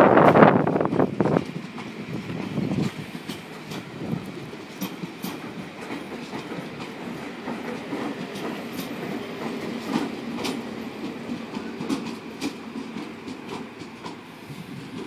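Train running on station tracks: loud at first, dropping off after about a second and a half to a lower rumble, with the wheels clicking over rail joints and points.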